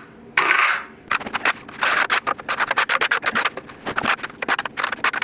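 Steel trowel scraping and combing thinset mortar across the back of a large ceramic tile while back-buttering it: one broad scrape, then a quick, uneven run of short scraping strokes.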